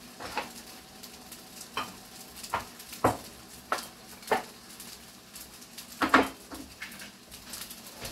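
Beans and eggs sizzling in a frying pan, with a utensil knocking and scraping against the pan about eight times, loudest about six seconds in.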